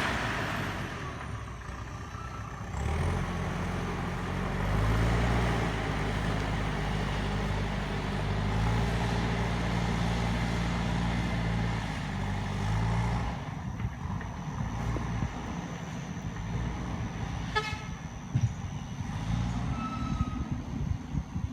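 Heavy earthmoving machine's engine running, its pitch stepping up and down for about ten seconds as it works. Then it drops back to a lower, rougher sound with scattered knocks.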